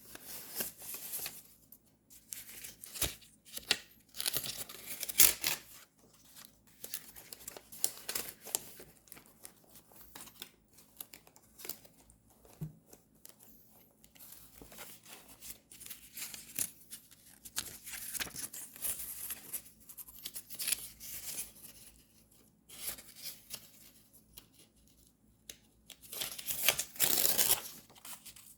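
Paper being handled up close, crinkling and tearing in irregular bursts, with a longer stretch of rustling and tearing near the end.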